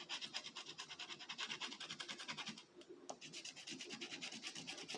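A coin scratching the coating off a paper scratch-off lottery ticket: quick, even back-and-forth strokes, about eight a second, with a short pause a little past halfway.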